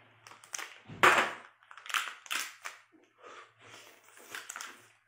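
Cooked lobster shell cracked and torn apart by hand: a loud crunch about a second in, then several smaller cracks and crackles.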